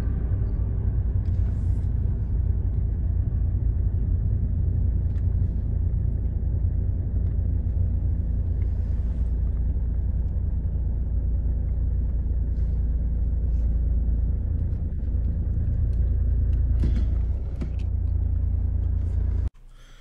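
Steady low rumble of a car moving, heard from inside the vehicle through a phone's microphone. A few faint ticks sit on top of it.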